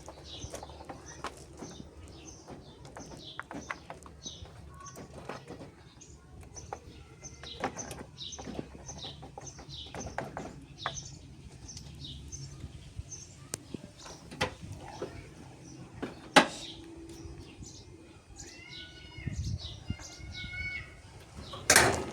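Small birds chirping over and over, about two short high chirps a second, with two sharp knocks, one about two-thirds through and one just before the end. Near the end, a few short rising-and-falling cries like a cat mewing.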